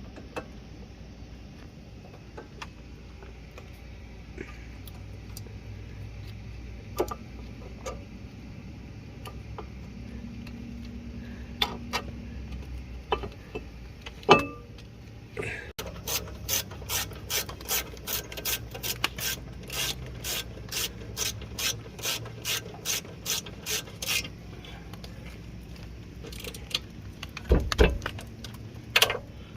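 Socket ratchet wrench clicking in a steady run of strokes, about two clicks a second, during a front brake pad and rotor job, with scattered metal tool knocks and clanks before and after.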